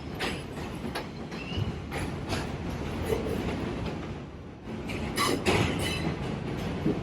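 New York City subway Q train running along the track: a steady rumble with irregular wheel clacks over rail joints and a brief wheel squeal about a second and a half in.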